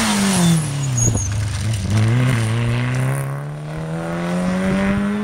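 Rally car engine passing at speed: the engine note drops over the first two seconds as the car goes by, then climbs steadily for about three seconds as it accelerates away.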